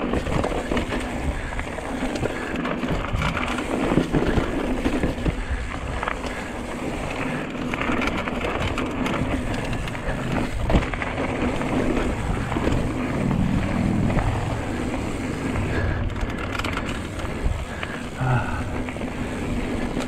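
Hardtail mountain bike riding fast down a dirt trail: tyres rolling with a steady rush, and constant clatter and knocks as the unsuspended frame goes over bumps.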